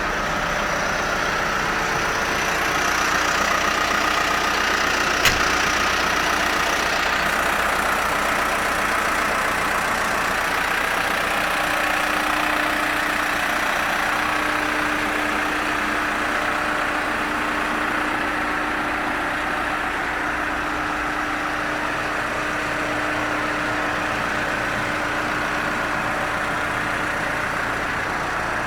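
New Holland LB110 backhoe loader's diesel engine idling steadily, with a single sharp click about five seconds in.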